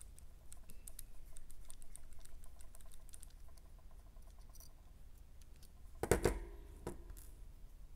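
Light, rapid clicking and ticking of a small hex driver and plastic and metal parts being handled on an RC crawler's transmission and slipper-clutch shaft. About six seconds in there is a louder clatter, with a smaller knock shortly after.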